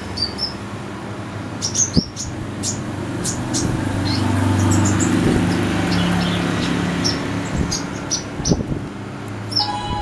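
Caged kolibri ninja sunbird giving short, high chirps at irregular intervals. A low rumble swells in the middle and fades away beneath them.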